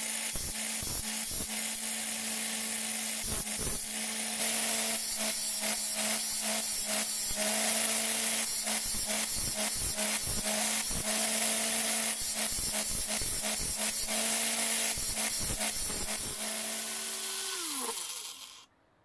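Electric angle grinder running at speed with a steady whine, while a steel drill bit is ground against its disc in short, repeated touches to sharpen the tip. Near the end the grinder is switched off and winds down, its pitch falling until it stops.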